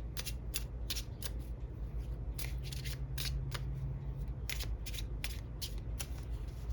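Tarot cards being handled: a quick, irregular series of crisp snaps and flicks as cards are drawn from the deck and laid down.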